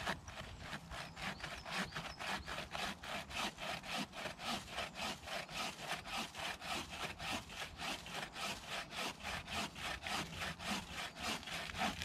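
Bow saw blade in an improvised wooden frame sawing back and forth through a slightly rotten log, in a steady rhythm of about four strokes a second.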